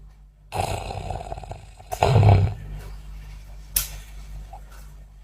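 A person snoring on the out-breath: a long rasping breath begins about half a second in, then a louder, lower snore comes around two seconds in, with a couple of sharp clicks.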